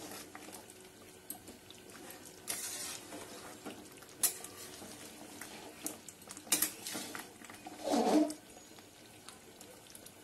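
A spoon stirring a thick chicken and potato curry in a metal pan: soft wet stirring broken by a few scrapes and clinks against the pan.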